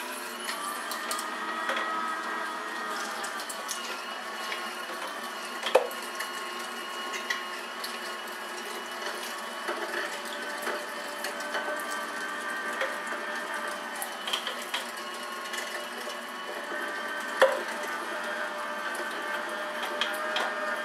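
Cabela's electric meat grinder's motor running steadily under load as it grinds venison chunks, some still partly frozen, with a steady hum and whine. Two sharp knocks stand out, about six seconds in and near the end.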